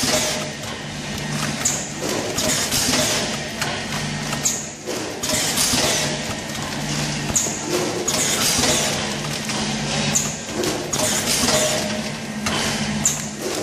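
Automatic powder-packing machine running over a steady hum, with a burst of clatter and hiss repeating about every three seconds, one bag cycle at 21 bags a minute.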